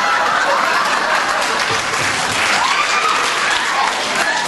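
Audience applauding, a dense patter of many hands clapping, with a few voices calling out over it midway.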